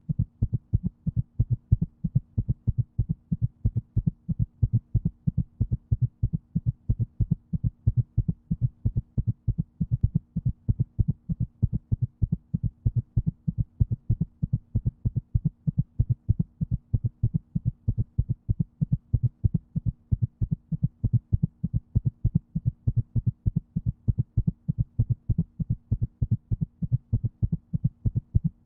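Heartbeat: a steady, regular rhythm of low, dull thumps, a few beats each second.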